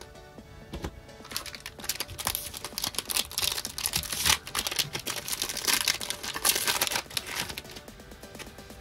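Foil Pokémon booster pack wrapper crinkling and tearing open in the hands, a dense crackle for several seconds that dies down near the end. Background music plays underneath.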